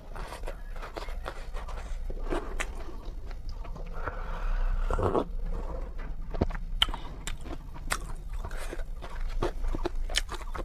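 Eating sounds: someone chewing and biting spicy noodles, with many short wet clicks and smacks, and a longer noisy stretch about four seconds in.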